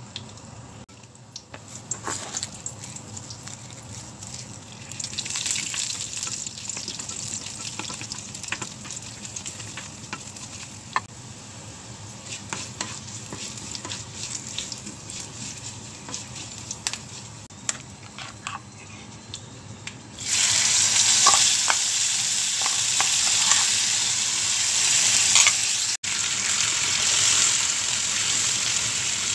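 Hot-oil tempering sizzling in a non-stick pan, with cumin, mustard seeds and dried red chillies crackling and a wooden spatula scraping and tapping. The sizzle grows about five seconds in as curry leaves go into the oil. About twenty seconds in, a sudden, much louder sizzle starts as the ground chutney hits the hot oil and keeps frying while it is stirred.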